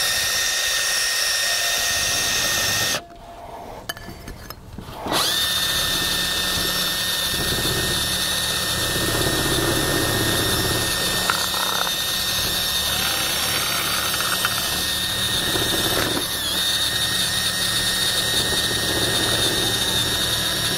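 Hilti cordless drill spinning a wire brush wheel against the painted cast-iron top of a gumball machine, scuffing off the paint's shine so new paint will adhere. It is a steady motor whine over the scratch of wire on metal. It stops about three seconds in and starts again roughly two seconds later.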